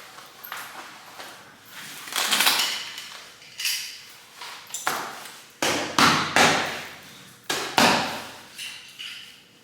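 Handling noises: a series of knocks, clicks and rustles, the loudest a cluster of thumps a little past halfway, as the baby carrier's straps and buckles are worked and moved about.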